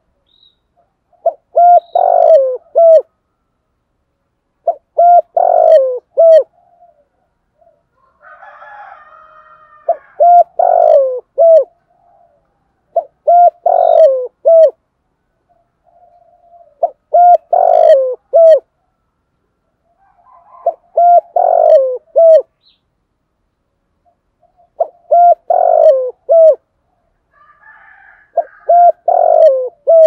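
Spotted dove cooing: a phrase of several low coos, repeated eight times about every three to four seconds.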